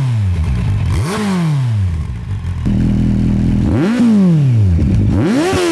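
Kawasaki Z800's inline-four engine idling on the stand and revved in three quick throttle blips, each a sharp climb in pitch falling back to idle. About halfway through it switches from the stock exhaust to a Yoshimura Alpha slip-on, with a louder idle.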